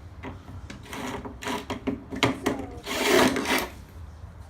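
A small motorised tool whirring in short, uneven runs, with a louder burst about three seconds in.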